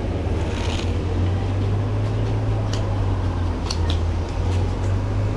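Steady low mechanical hum, with a few short sharp clicks and taps from about halfway through.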